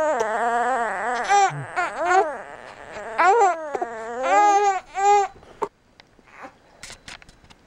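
Baby crying: a run of high, wavering cries that stops about five seconds in, then a few faint small sounds.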